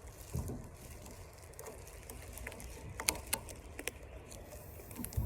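A rubber band being stretched and worked onto a watermelon: faint rubbing and handling, a dull thump about half a second in, and a few sharp snaps about three to four seconds in.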